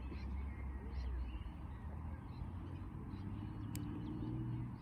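Small birds chirping faintly and intermittently over a steady low rumble, with a single sharp click nearly four seconds in.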